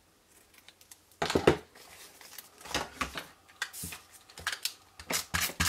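Scissors cutting a length of scalloped linen ribbon, with the loudest, sharp sound about a second in, followed by a run of small clicks, taps and rustles as craft supplies are handled on a work mat.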